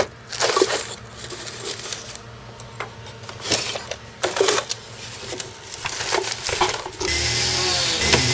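Jeweler's saw rasping through sheet metal on a wooden bench pin in a few short, irregular bursts; about seven seconds in, a flex-shaft rotary tool starts and runs steadily with a whine that wavers in pitch.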